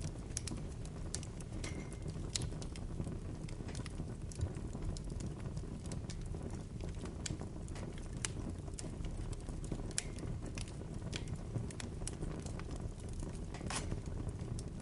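Bonfire burning: irregular sharp crackles and pops of burning wood over a steady low rumble, with one louder pop near the end.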